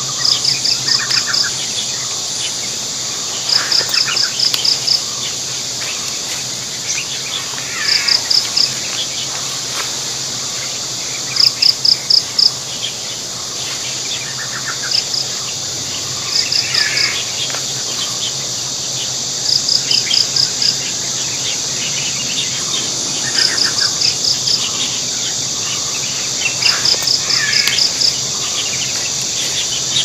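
Steady high insect drone, with short trains of rapid cricket-like chirps about every three to four seconds and birds calling now and then.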